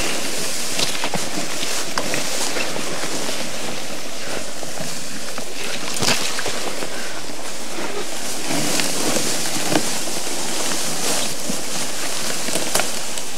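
Steady rustling and scraping of leaves, stalks and brush as a loaded plastic sled is dragged through thick undergrowth, with a few sharp snaps along the way.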